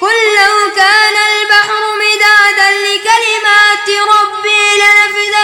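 A single voice reciting the Quran in melodic tajweed chant, unaccompanied. It draws out long held notes on one pitch, ornamented with quick wavering turns, starting fresh after a short breath.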